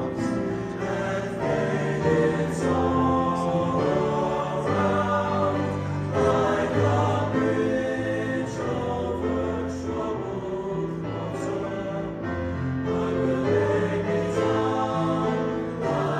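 Male choir singing in harmony: held chords that change every second or so over a moving bass line.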